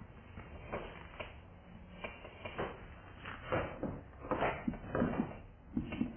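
Marker writing on a whiteboard: a string of short, irregular scratching strokes as letters are drawn, coming thicker in the second half.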